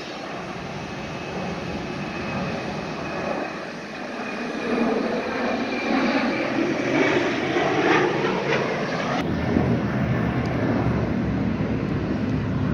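Jet airliner's engines at takeoff thrust as it climbs out: a steady roar with a thin high whine, growing louder about five seconds in.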